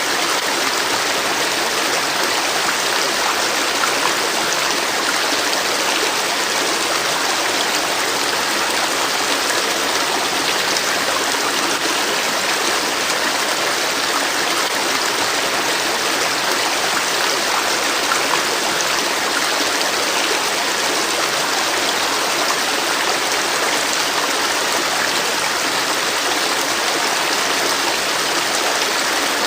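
A river or stream flowing steadily, a continuous even rush of water with no pauses.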